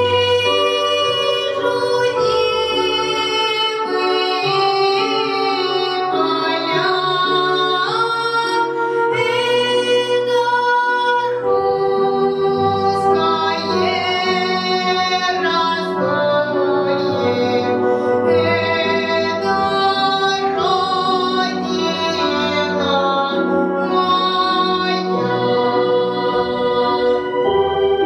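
A boy singing a Russian folk song in a high, unbroken voice over instrumental accompaniment, holding and bending long notes.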